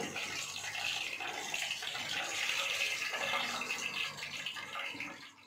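Pan gravy of flour, water and beef stock cube simmering in a frying pan over low heat, a steady bubbling hiss that fades out near the end.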